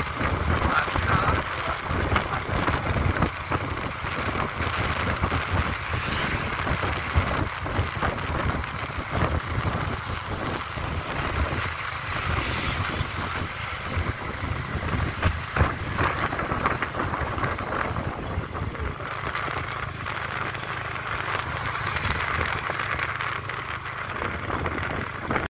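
Wind buffeting a phone's microphone, an uneven low rumble over a steady outdoor hiss.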